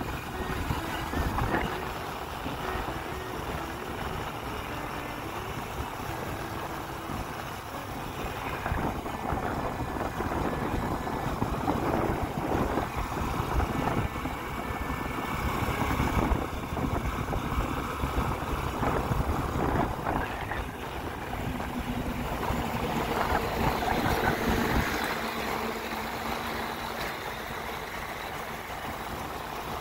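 A vehicle on the move: engine running with road and wind noise rushing over the microphone, swelling and easing in gusts.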